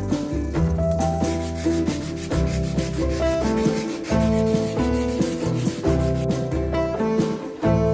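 Repeated sanding strokes with background music that has a bass line and keyboard notes.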